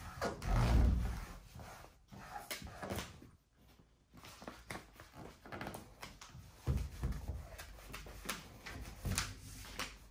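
Workshop handling noises: a low thump about half a second in and another near seven seconds, with scattered short clicks and knocks between them.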